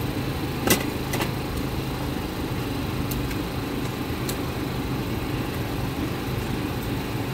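A steady, low machine hum, with a few sharp clicks of a metal scraper striking the steel cold plate of a rolled-ice-cream pan. The loudest click comes about a second in.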